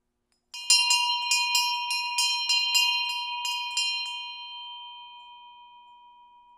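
Hand-cast tin bronze bell (classic ancient bronze, 12.5% tin) swinging on its cord, its clapper striking about a dozen times in quick succession, then the ring dying away slowly on one clear lingering tone. A lovely tone with a little hint of dissonance in it.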